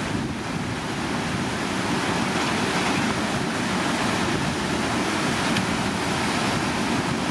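Steady rushing of whitewater at the Glenwood Wave, a river standing wave on the Colorado River, running high at a flow of about 3,500.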